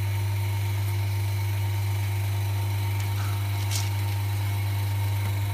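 Vacuum pump of a phone LCD refurbishment machine running with a steady low hum, drawing vacuum during alignment and lamination of the LCD.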